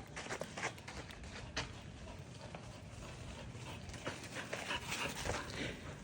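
A dog's sounds, among irregular light taps and scuffs.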